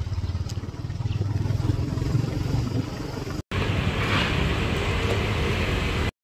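Low, fluttering rumble of a moving motorcycle, engine and wind together. After an abrupt cut comes steady street traffic hiss, which cuts off suddenly at the very end.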